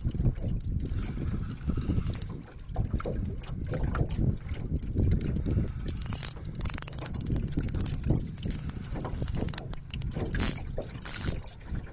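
Wind buffeting the microphone in uneven low rumbles, with handling knocks and bursts of high hiss about six and ten seconds in.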